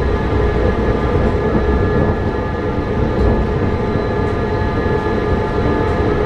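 MRT (metro) train running at a steady pace: a constant rumble with a steady hum of several held tones.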